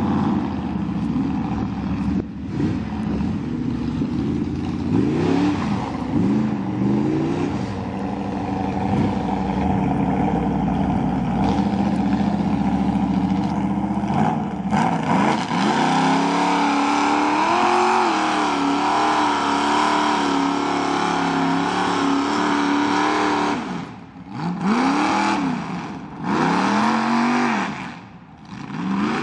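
Lifted Ford mud trucks' engines revving hard as they churn through the mud pit. The pitch swings up and down with each burst of throttle. In the middle there is a long stretch held at high revs, and near the end a few short revs are separated by brief drops.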